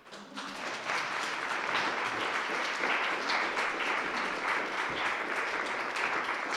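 Audience applause: many people clapping, building up over the first second and then holding steady.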